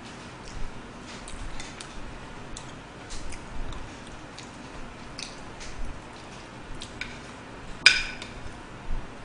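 Eating sounds: soft chewing and small mouth and utensil clicks. About eight seconds in, a fork strikes a plate with a sharp clink that rings briefly.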